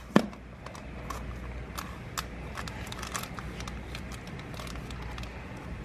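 Small scattered clicks and crinkles of a plastic fish bag being handled and snipped with scissors over a bucket of water, with one sharper click just after the start.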